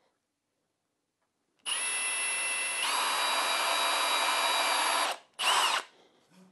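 Cordless drill with a countersink bit boring a pilot hole through a plastic strip. The motor starts about a second and a half in, its whine steps up in pitch about a second later, and it runs for about three and a half seconds before stopping, followed by a short half-second burst.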